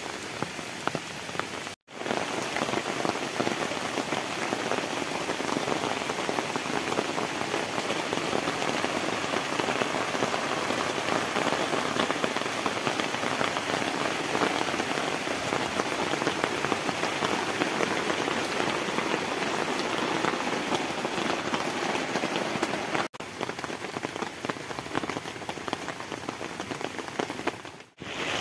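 Heavy rain falling steadily, a dense even patter of rain on the ground. It cuts out for an instant about two seconds in, again about five seconds before the end, and once more just before the end, where the footage is cut.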